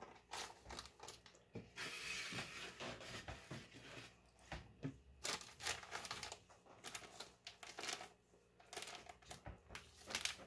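Faint crinkling and rustling of a small plastic bag of icing being handled and squeezed, with scattered small clicks, denser for a second or two early on.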